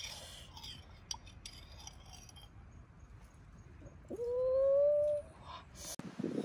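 A few light clinks of a metal spoon, then about four seconds in a single call about a second long that jumps up in pitch and keeps rising slowly before cutting off, like an animal's cry.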